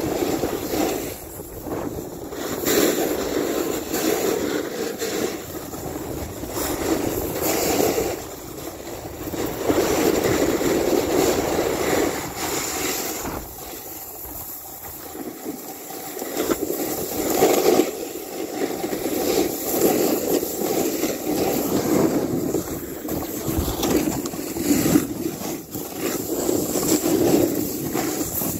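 Snowboard sliding and carving over snow, a rushing scrape that swells and eases with each turn and drops quieter for a couple of seconds about halfway through. Wind rushes over the microphone throughout.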